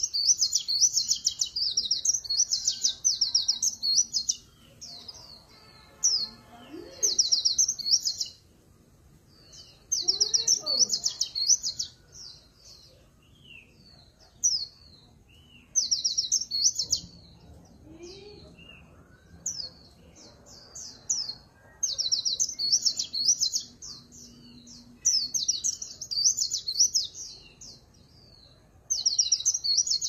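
Caged white-eye singing the rapid, high-pitched chattering song that keepers call 'líu pha chòe', in bursts of one to three seconds with short pauses between them.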